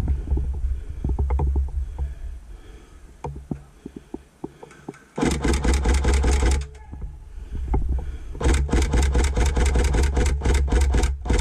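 Two bursts of rapid full-auto airsoft gun fire. The first starts about five seconds in and lasts about a second and a half; the second, near the end, lasts nearly three seconds. Before them come scattered knocks and low handling rumble on a body-worn camera.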